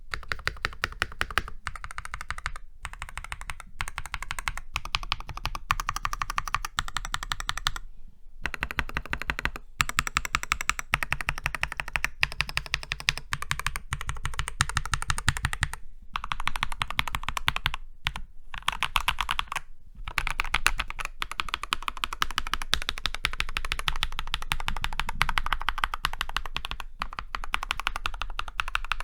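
Typing on a Keychron C2 Pro 8K mechanical keyboard in stock form, with Keychron Super Red linear switches and OSA-profile keycaps: fast, steady keystroke clacking with a few brief pauses.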